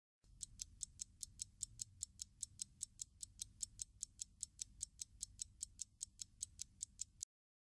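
Clock-ticking sound effect: a steady run of sharp ticks, about five a second, that starts and stops abruptly.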